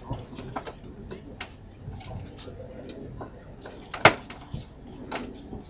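Low murmur of voices from a crowd, with scattered small clicks and knocks. One sharp knock about four seconds in.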